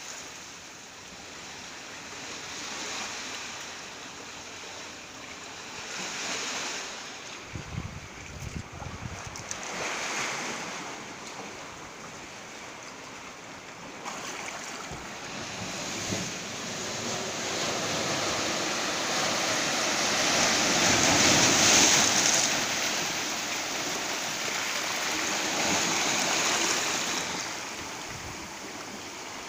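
Sea waves washing in over shoreline rocks, the surf swelling and easing in slow surges and loudest about two-thirds of the way through. Wind buffets the microphone briefly about a quarter of the way in.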